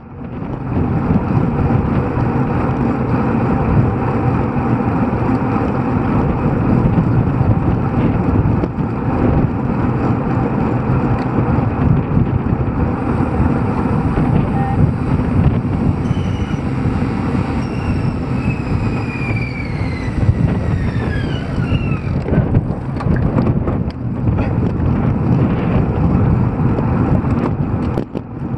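Wind rushing over a bike-mounted microphone at riding speed, with the hum of road bike tyres on asphalt from a group ride. About two-thirds of the way through, a faint high whine glides slowly down in pitch over several seconds.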